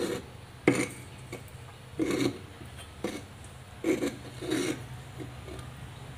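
Pestle stirring and scraping through wet sambal in a stone mortar: irregular rasping scrapes and knocks of the pestle against the stone, with one sharp clack about two-thirds of a second in. A steady low hum runs underneath.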